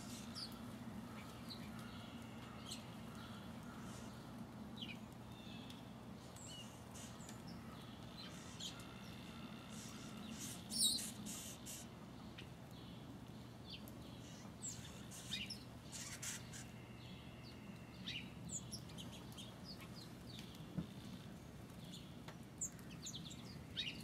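Small songbirds giving scattered short chirps and call notes, with one sharper, louder high call about eleven seconds in, over a faint steady low hum.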